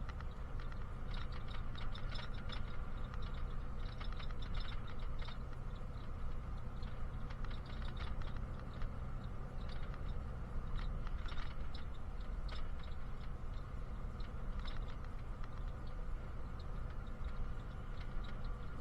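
Steady low drone of a bus engine and road noise heard from inside the cabin, with irregular light rattles and clicks from the interior fittings coming and going over it.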